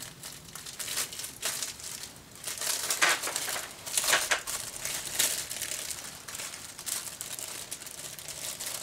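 Clear plastic bag holding the gaskets of a two-stroke top-end gasket set crinkling as it is handled and gaskets are pulled from it, in irregular rustles that are loudest from about three to five seconds in.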